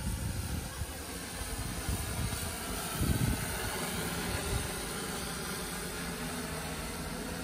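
Hexacopter drone on a DJI E2000 propulsion system, its six motors and propellers droning steadily in flight. Low buffeting rumbles come and go beneath it, loudest about three seconds in.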